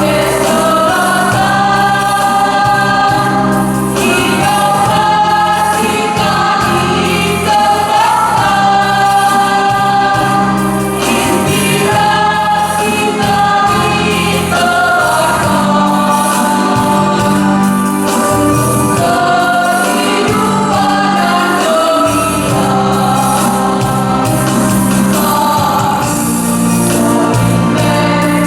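Choir singing in several voices, holding long notes.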